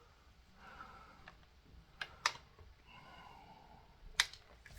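A few sharp clicks and taps of hand tools being handled against the engine block: a pair about two seconds in and one near the end, with faint scraping between.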